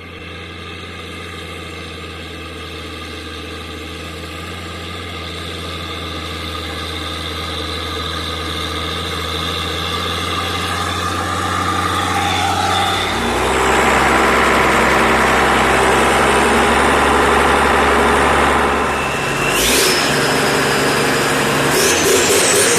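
Tractor diesel engine running steadily, growing gradually louder over the first dozen seconds. About 13 s in it turns louder and rougher, then rises in pitch twice as it is revved, once around 20 s and again near the end.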